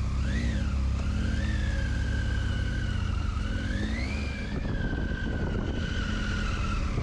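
Triumph Tiger 800's three-cylinder engine pulling away at low speed. The revs rise and fall briefly about half a second in, then climb again around four seconds in.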